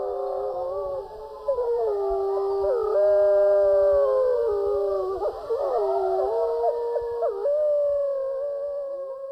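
A pack of wolves howling in chorus: several long, overlapping howls that rise and fall in pitch, fading away near the end.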